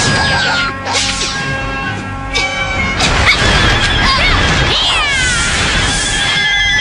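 Dramatic film-score music with sound effects: a whoosh about a second in, then several shrill, yowling animal-like screeches that slide down in pitch.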